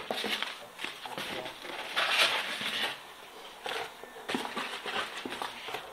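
Packaging being handled: irregular rustling with scattered light clicks and taps, and a louder rustle about two seconds in.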